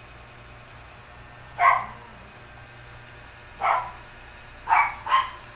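A dog barking: four short barks, spaced out, the last two in quick succession near the end.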